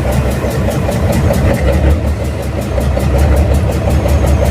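FNM (Alfa Romeo) truck diesel engine running with an even, rapid beat. Its turbocharger is not in good shape: the owner says it is blowing a little.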